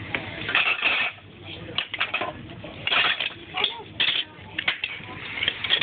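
Plastic Lego bricks clicking and clattering as they are pulled apart and set down on a tabletop, in short bursts about once a second.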